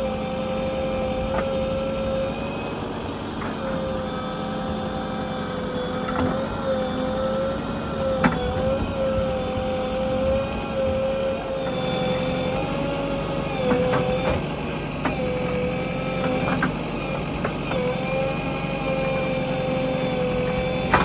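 JCB 3DX backhoe loader's diesel engine running as the machine digs, with a steady high whine that dips briefly every few seconds. Now and then there is a sharp clank, and the low engine note shifts about halfway through.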